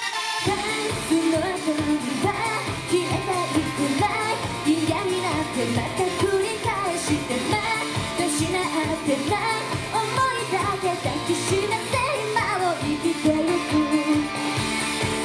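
Japanese idol pop song played loud through a PA: female group vocals over a backing track with a steady drum beat.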